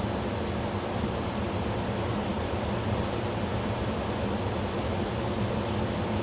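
Electrolux WP71-265WT portable air conditioner running with its fan on high: a steady drone with a dissonant low hum. The owner considers this a fault, one that Electrolux calls normal.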